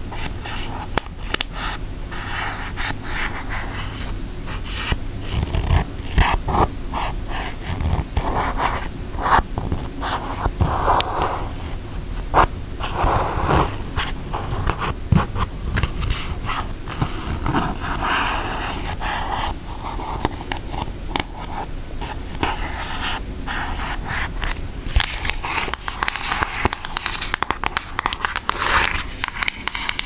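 Long acrylic nails tapping and scratching on the cover of an eyeshadow palette, close to the microphone: many quick, irregular taps with short scratchy strokes between them.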